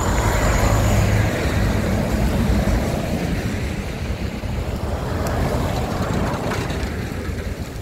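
A truck and then a car driving past close by on a highway, engine and tyre noise over a steady low rumble, loudest in the first second or two and swelling again about six seconds in.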